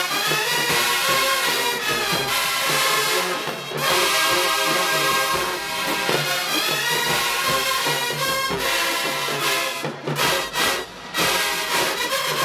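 Marching band playing in the stands, brass to the fore, with a few short sharp breaks in the playing near the end.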